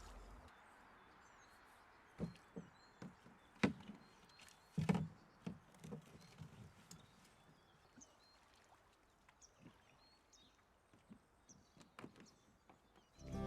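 Scattered hollow knocks and paddle sounds from a canoe being paddled on the water, loudest about five seconds in and thinning out later, with small birds chirping faintly.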